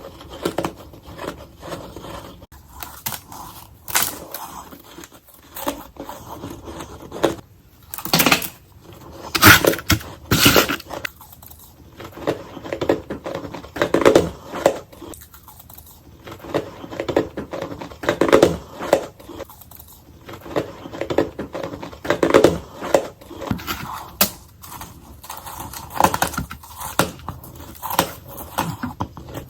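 Ice being bitten and chewed close to the microphone: a series of sharp, loud cracking bites, then repeated bouts of crunching as the pieces are chewed.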